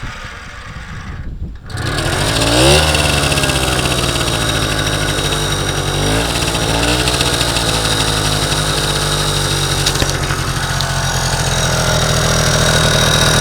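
1960 NSU Quickly S moped's small two-stroke single-cylinder engine, fitted with a high-compression head, catching a little under two seconds in. It revs up, dips and picks up again with a second rev, then runs steadily.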